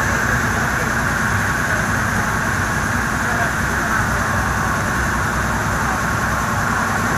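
Steady drone of a river passenger boat's engine under way, mixed with rushing water and wind, heard from the open deck.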